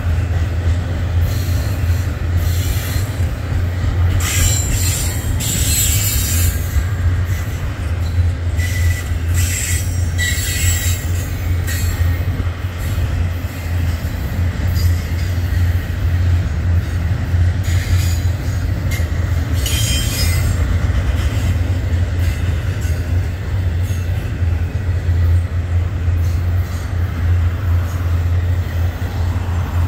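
Union Pacific double-stack container train rolling past with a steady low rumble from the cars, with high-pitched wheel squeal breaking in three times.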